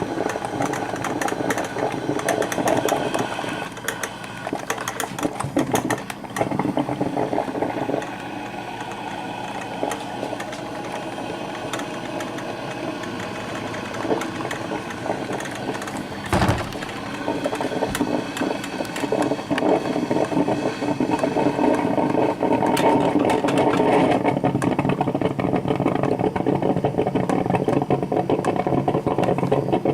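Black & Decker thermal carafe drip coffee maker brewing: a steady gurgling, crackling rattle of water being heated and pushed up through the machine, with one sharp click about two-thirds of the way through.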